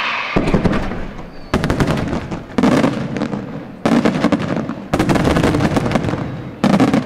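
Aerial firework display: a brief hiss, then salvo after salvo of shell bursts, a dense rattle of sharp bangs with a fresh loud volley starting about every second.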